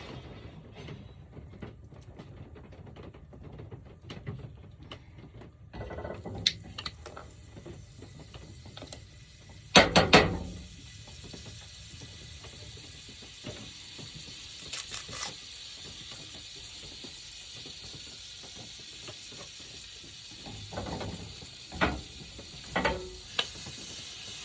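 Clicks and clatter of cooking at a small stove, with a loud clatter of knocks about ten seconds in. A steady sizzle of frying sets in about six seconds in.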